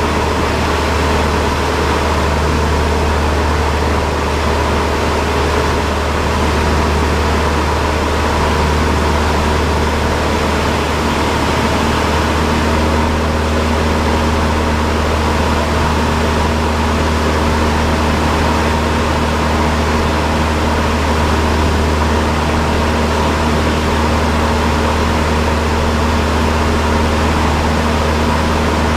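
Cessna 172's piston engine and propeller droning steadily, heard inside the cabin.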